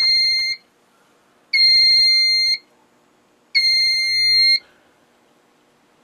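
Notifier SFP-2404 fire alarm control panel's built-in piezo sounder beeping: a clear high tone about a second long, repeating every two seconds. It sounds three times, the first already under way, then stops.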